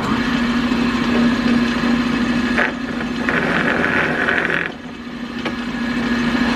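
Drill press motor running with a steady hum while its twist bit bores into a wooden handle; the cutting noise swells about three seconds in and eases off a second and a half later.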